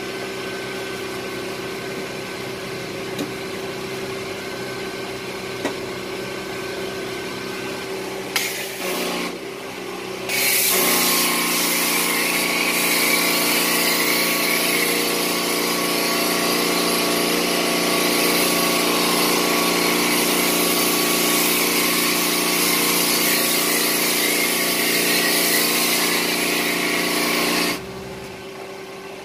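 Pressure washer spraying water onto a truck's cab: a loud, steady hiss starts about ten seconds in and cuts off suddenly near the end. An engine hums steadily underneath throughout.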